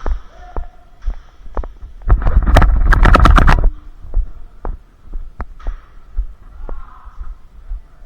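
Airsoft electric gun firing full-auto, a loud rapid rattle of shots lasting about a second and a half, starting about two seconds in. Scattered thumps and ticks of the player's footsteps and gear before and after.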